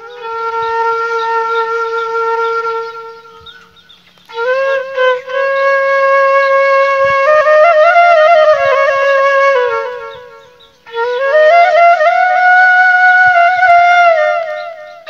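Outro music: a single melody line of long held notes that slide from one pitch to the next, in three phrases with short pauses between.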